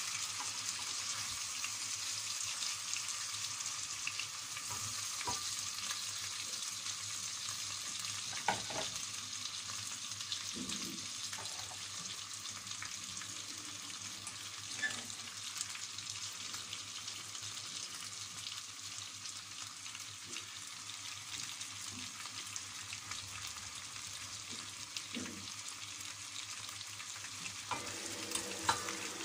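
Chicken pieces sizzling in hot oil with garlic in a stainless steel pan, lightly browning, a steady frying hiss. A wooden spoon knocks and scrapes against the pan a few times as the pieces are stirred, around 8 and 15 seconds in and again near the end.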